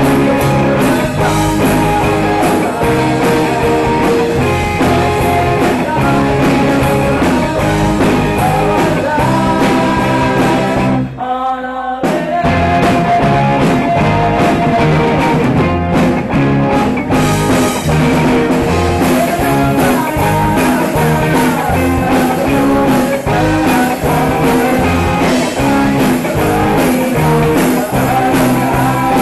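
Live student rock band playing a song: electric guitars over a drum kit, with a brief stop about eleven seconds in before the band comes back in.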